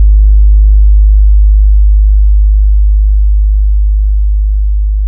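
A single very loud, deep electronic sub-bass tone, the kind of long bass note used in a DJ high-gain sound check to test the speakers. It holds steady and slowly fades, and its higher overtones die away within the first two seconds.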